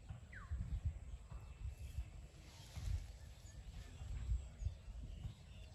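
Uneven low rumble of wind buffeting the microphone, with one short downward-gliding bird chirp about half a second in.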